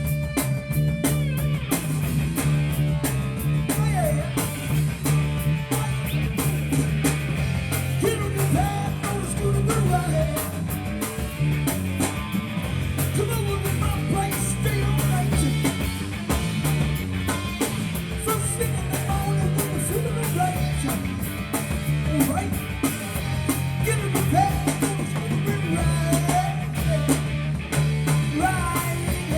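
Rock band playing: electric guitar lines over a stepping bass line and a drum kit.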